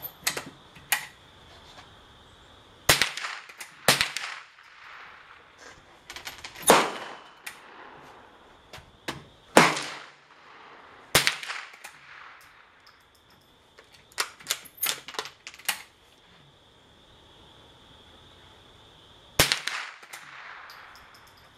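.22 rimfire gunshots fired one at a time at irregular intervals, a second to several seconds apart, with a quicker run of about five shots about two-thirds of the way through.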